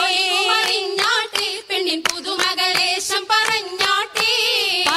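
An oppana song: voices singing a Mappila folk tune in unison with wavering, ornamented pitch, over sharp hand claps that come every half second or so in a rhythm.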